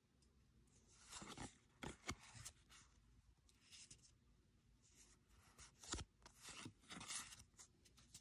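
Faint sliding and rustling of Pokémon trading cards as they are moved one at a time from the front to the back of a small stack in the hands, with several brief swishes and a few sharp ticks.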